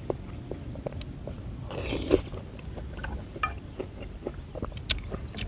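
Close-up eating sounds of a person eating instant noodle soup with mushrooms: a slurp about two seconds in, then chewing with many small wet clicks.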